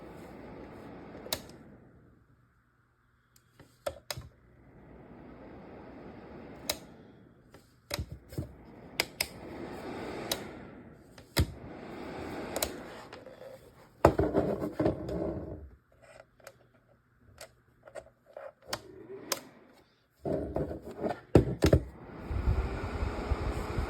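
Handling noise: scattered sharp clicks and knocks, with stretches of soft rustling and scraping between them and a cluster of louder knocks near the end.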